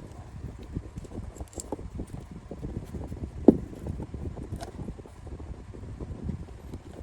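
Hands handling PC power-supply cables and case parts: a steady scatter of small irregular clicks and rustles, with one sharper knock about three and a half seconds in.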